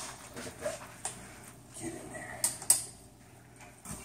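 A few light knocks and clicks with rustling as a raw 20-pound turkey is pushed and worked into the perforated metal basket of a Masterbuilt Butterball XL electric turkey fryer; the two sharpest knocks come about two and a half seconds in.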